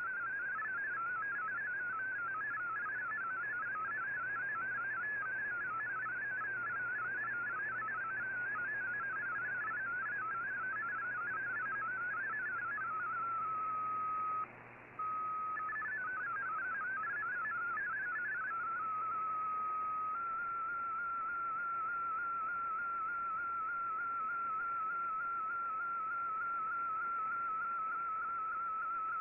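Shortwave MFSK digital-mode data signal from an Icom IC-R8600 receiver: a warbling stream of rapidly hopping tones over hiss as Fldigi decodes text. Partway through, the warble gives way briefly to a steady tone with a short dropout, warbles again, then settles into a single steady, slightly wavering tone as an embedded MFSK picture starts transmitting.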